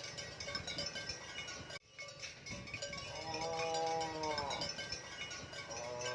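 Background music with a cow mooing over it twice: a long call about three seconds in that drops in pitch at its end, and a second one starting near the end. The music cuts out for an instant just under two seconds in.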